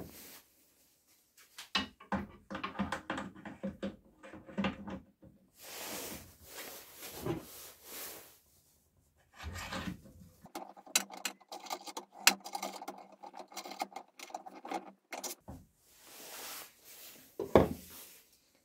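A steel taper collet holder is fitted into a drill-press spindle by hand and the drawbar is tightened. Metal scrapes and rubs are heard, then a long run of rapid metallic clicks with a faint ring in the middle.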